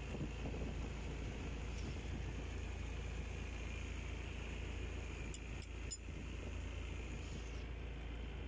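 Wheel excavator's diesel engine running steadily, heard from inside the operator's cab. A few light clicks come about five to six seconds in.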